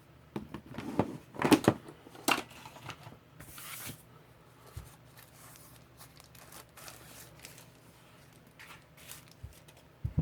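Packaging of a USB hub being handled and opened: loud rustling and tearing for the first few seconds, then a brief hiss and faint scattered clicks and rustles.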